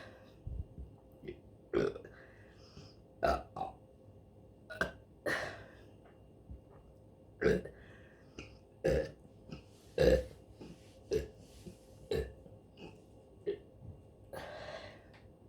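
A woman burping over and over: a run of about a dozen short belches, one every second or so, with brief pauses between.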